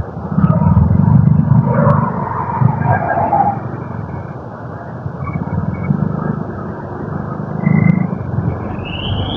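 Motorcycle on the move: engine and road noise with wind rumbling on the microphone, swelling and easing unevenly.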